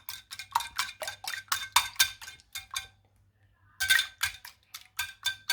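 Eggs being beaten in a bowl, the utensil clinking against the bowl's side about five times a second. The beating stops for just under a second about three seconds in, then starts again.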